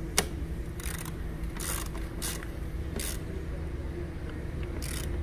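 Ratchet with a 12 mm socket on an extension tightening a battery hold-down nut: a sharp click, then several short bursts of ratchet clicking at irregular intervals, over a steady low hum.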